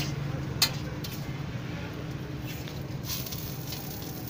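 Work at a flat griddle while a bun burger is assembled: two sharp knocks about two-thirds of a second apart, then a few lighter clicks and taps over a steady low hum.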